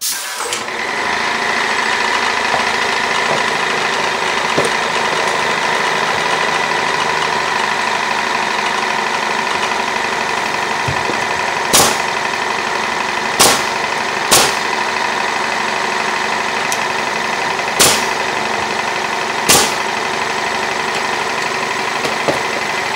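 An air compressor runs steadily with a whining hum, while a pneumatic nail gun fires five sharp shots in the second half, driving nails through drywall.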